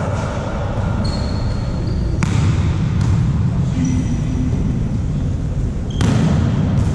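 Volleyballs being struck in a gymnasium: sharp slaps about two seconds in and twice near the end, with a few brief high squeaks and a steady low din of the hall.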